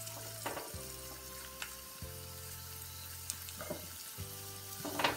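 Dried coconut slices and raisins sizzling in a little hot oil in a nonstick kadhai, with a few scrapes and taps of a wooden spatula against the pan.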